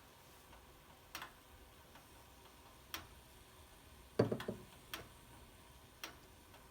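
A few sharp clicks at uneven intervals of one to two seconds, with a louder cluster of several knocks about four seconds in.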